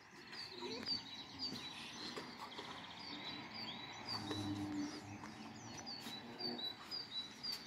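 Small birds chirping: a steady string of short, high chirps, a couple each second, with faint low background noise.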